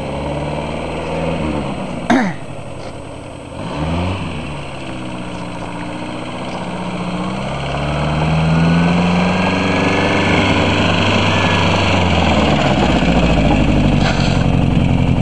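Peugeot 305 saloon's engine revving and pulling away, its pitch rising and falling through the gears as the car drives closer, growing louder from about eight seconds in and then running steadily close by. A short sharp knock about two seconds in.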